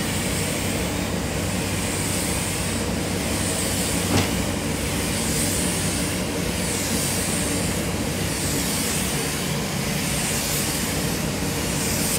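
Paint spray gun hissing in repeated passes over a car body, the hiss swelling and fading about every second and a half, over the steady rumble of the paint booth's ventilation. One light knock about four seconds in.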